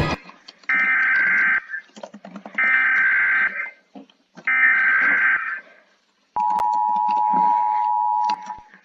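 Emergency Alert System alert tones: three data bursts of about a second each, a second apart, carrying the SAME header, then the steady two-tone EAS attention signal held for about two seconds.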